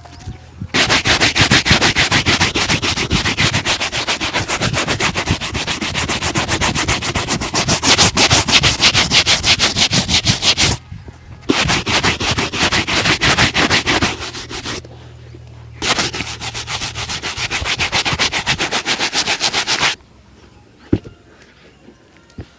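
Rapid back-and-forth buffing of a shoe during a shoe shine, a fast run of brisk rubbing strokes. It comes in three spells, pausing briefly near the middle and again a little later, and stops near the end.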